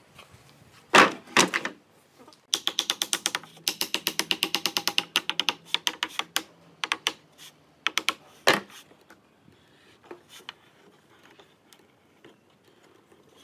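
Metal pipe clamps being set on pine boards and tightened on a workbench. Two loud knocks about a second in are followed by a rapid, ringing ratchet-like clatter lasting about four seconds as the clamps are worked. After that come scattered clicks and one sharp knock, then faint taps.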